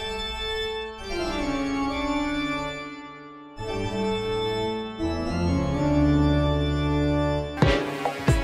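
Organ music playing held chords that change every second or two, with a few sudden sound-effect hits near the end.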